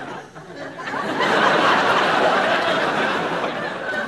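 Studio audience laughing, swelling about a second in and tailing off near the end.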